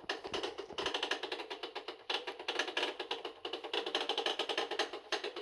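Hitachi BeatWash washing machine making a rapid, continuous clatter of knocks over a steady hum. It is the abnormal noise of a broken machine.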